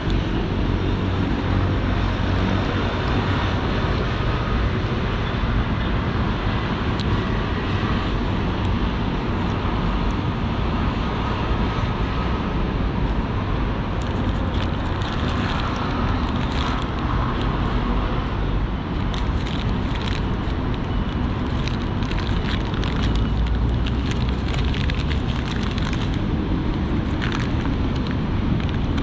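Paper food wrappers crinkling and rustling as they are handled and unwrapped, in short crackles through the second half. Underneath is a steady low outdoor rumble of city noise.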